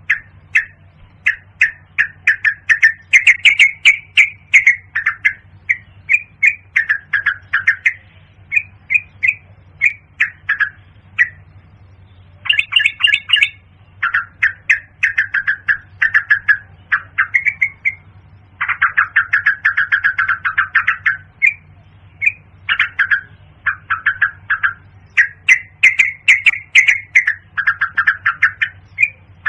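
Yellow-vented bulbul calls from a lure recording: short bursts of quick, bubbly chattering notes follow one another with brief gaps, one longer burst near the middle. A steady low hum runs underneath.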